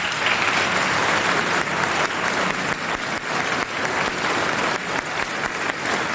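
Large audience applauding: a dense, steady mass of hand claps.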